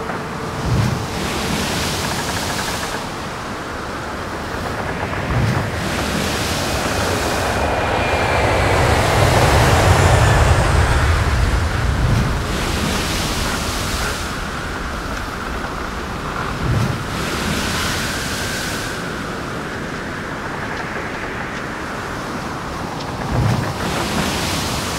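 Ambient soundtrack of a washing, surf-like noise that swells and fades every few seconds, with a deeper rumble in the middle and a faint gliding tone now and then.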